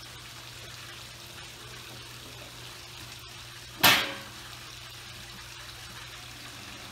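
A single sharp knock about four seconds in, over a faint steady low hum.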